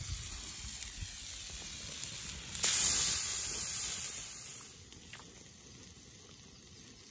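Steaks sizzling on a steel hot plate over a campfire: a steady hiss that turns sharply louder about two and a half seconds in, then fades to a faint background a couple of seconds later.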